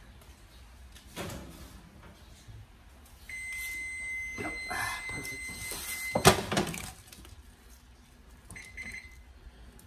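Electronic oven beeper sounding one steady high-pitched beep for about three seconds, ended by a sharp clack, then a short second beep near the end, with light clatter of cookware around it.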